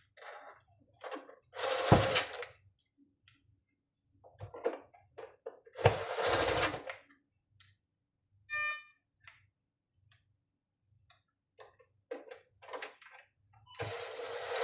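Screws being driven into a patient monitor's circuit board: short bursts of screwdriving, one about two seconds in, one about six seconds in and one near the end, with small clicks of handling between them and a brief squeak in the middle.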